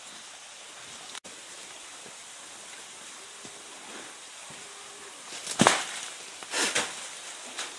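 Two sharp cracks about a second apart near the end, chunks of ice thrown and breaking, over a steady hiss.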